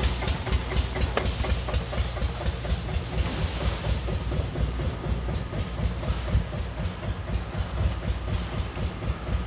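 Eicher tractor's diesel engine running at a steady low speed, a rapid even chugging knock.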